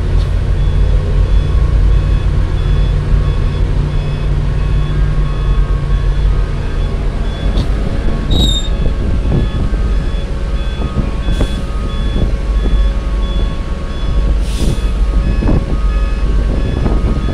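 A concrete mixer truck's reversing alarm beeping in an even, repeated pattern over the low steady run of the excavator's engine, heard from inside the cab. A few short knocks and clatters come in the second half.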